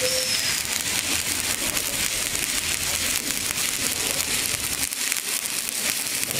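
Electric stick (electrode) arc welding: the arc makes a steady, dense crackle of fine rapid ticks as the rod burns.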